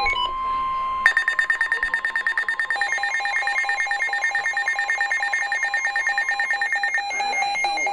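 Emergency alert tones: a steady single-pitch alert tone cuts off about a second in and is replaced by a loud electronic alarm tone pulsing rapidly, about ten beats a second, which eases near the end.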